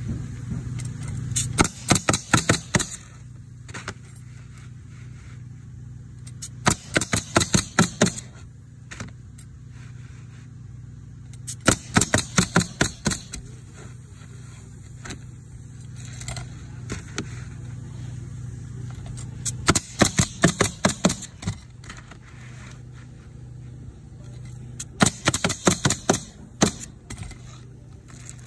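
Pneumatic roofing coil nailer driving nails into asphalt shingles: five quick bursts of sharp shots, each of several nails fired in rapid succession, spaced a few seconds apart. A steady low hum runs underneath.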